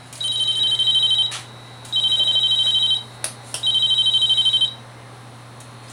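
Electronic telephone ringer trilling in three bursts of about a second each, a high two-tone warble, with a few short clicks between the bursts.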